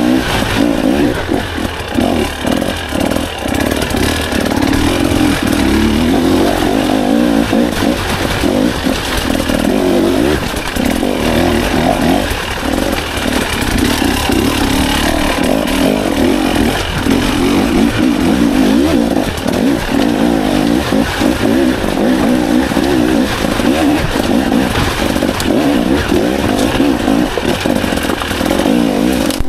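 KTM 300 EXC TBI's single-cylinder two-stroke engine revving up and down constantly as the throttle is worked, ridden hard over rough, rocky ground.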